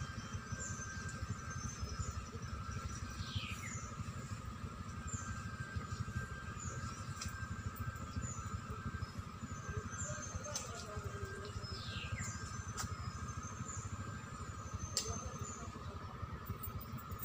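Outdoor ambience among trees: a steady high-pitched drone and short high chirps every second or two, with two falling whistles about three seconds and twelve seconds in, over a low rumble.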